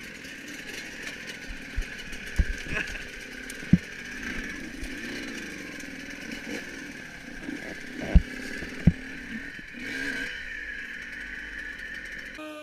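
Enduro motorcycle engine running under way, with several sharp thumps, the loudest about four and eight seconds in.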